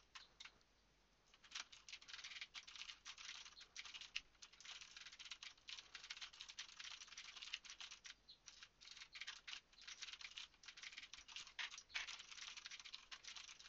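Fast typing on a computer keyboard: a dense run of faint key clicks that starts after a short pause about a second in.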